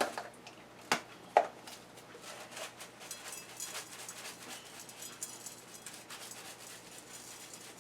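Faint, rapid rattling of a seasoning shaker being shaken over chicken, after a sharp click about a second in.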